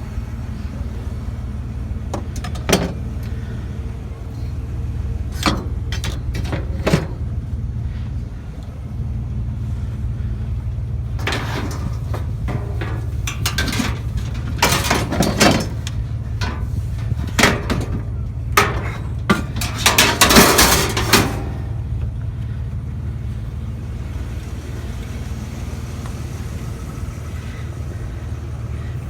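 Scrap metal and fencing being handled and loaded, giving scattered clanks and then a dense run of clanks and rattles through the middle stretch, over the steady low hum of an idling vehicle engine.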